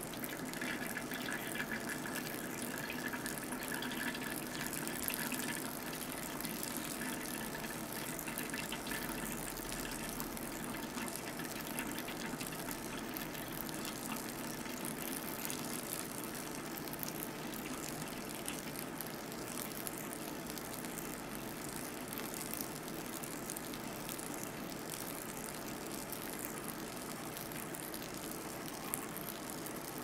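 A thin stream of hot water poured steadily from a drip kettle onto coffee grounds in a paper filter cone, making an even, unbroken splashing: the extraction pour of a hand drip.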